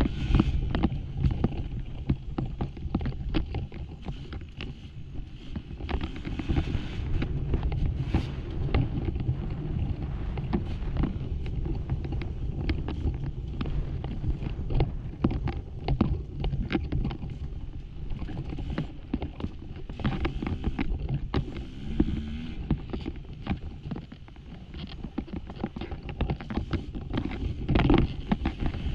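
Off-road dirt bike engine running under load on a loose, rocky trail, with a constant clatter of knocks from rocks and the bike's chassis.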